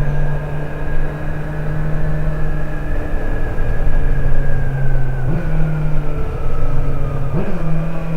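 Kawasaki Z900 inline-four motorcycle engine running at a steady, even note, with two short rises in pitch, one about two thirds of the way through and one near the end.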